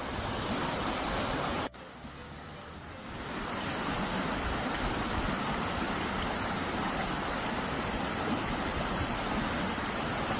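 Creek water running with snowmelt, a steady rushing that drops off suddenly for a moment almost two seconds in, then builds back up and holds.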